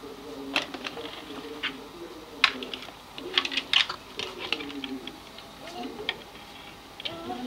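Sharp plastic clicks and rattles of telephone cables and RJ11 plugs being handled and pushed against the back panel of an Orange Livebox Play router, with a low wavering sound underneath.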